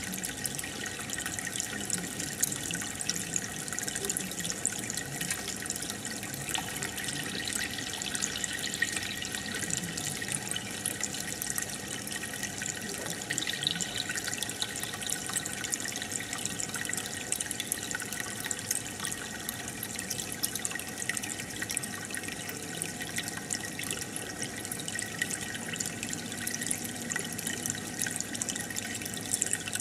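Aquarium water bubbling steadily: a dense stream of air bubbles from an air stone breaking at the surface, a continuous fine splashing and trickling made of many tiny pops.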